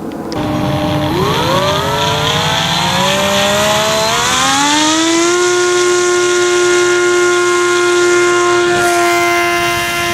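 Radio-control F7U Cutlass model plane's motor and propeller spooling up: a whine rising in pitch over about four seconds, then holding steady.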